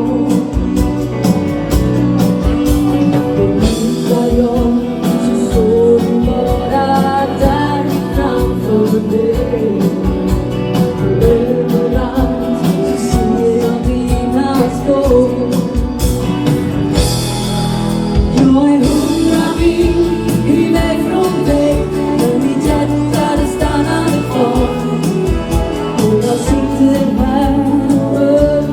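Live dansband music with a steady dance beat on drums and bass, guitar, and a woman singing the lead.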